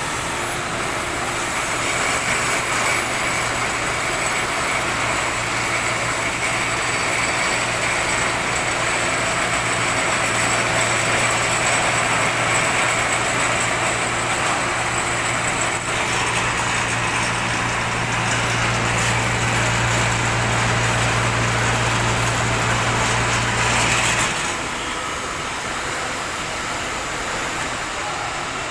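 Milling machine running with a steady low hum that grows stronger partway through, then cuts off suddenly a few seconds before the end. Steady workshop noise continues underneath.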